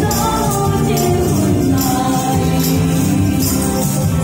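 A woman singing into a microphone over an upbeat backing track, with hand tambourines jingling on the beat.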